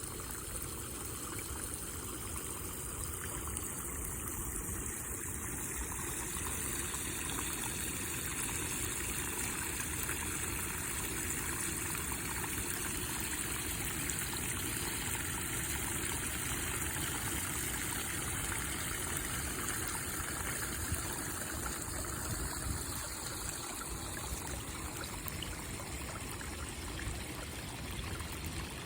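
A small stream running steadily over stones, a continuous babble and trickle of water.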